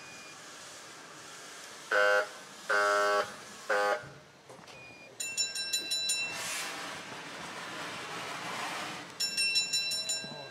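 Steam locomotive whistle sounding three blasts, short, longer, short. A fast-struck bell then rings twice, with a hiss between the two rings.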